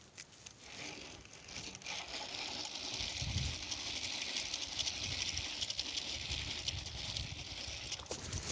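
Shimano 2000 spinning reel being cranked to retrieve the frog bait, a steady fine whirring that starts about two seconds in and stops just before the end. There are a few dull low thuds about three seconds in.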